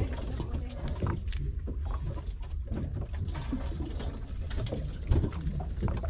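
Water sloshing and splashing around a small fishing boat at sea, over a steady low rumble, with scattered small knocks.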